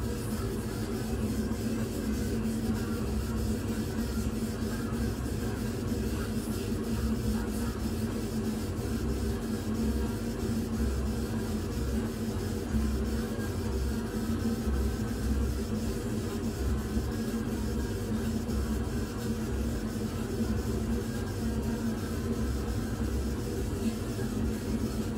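Laser engraver running while its head sweeps back and forth, raster-engraving a photograph: a steady mechanical hum with an uneven low pulsing underneath.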